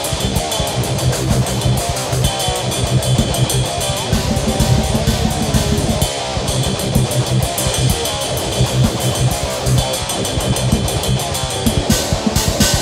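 Rock music with guitar and a drum kit keeping a steady beat, playing as an outro.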